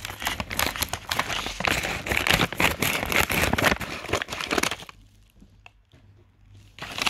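Sealed Air Mail Lite bubble-lined paper mailer crinkling and rustling as it is handled: a dense run of crackles for about five seconds, a lull of about two seconds, then crinkling again at the very end.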